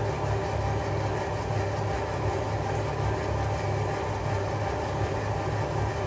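Machinery in a honey extraction room running steadily with a constant low hum.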